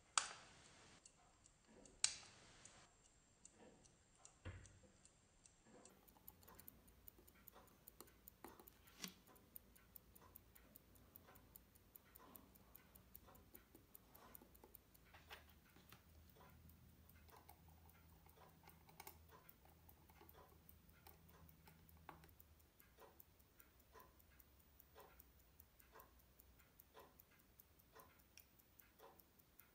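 Faint, irregular small metallic clicks and taps of watchmaker's tweezers and screwdriver on a pocket watch movement, with two sharper clicks about two seconds apart near the start.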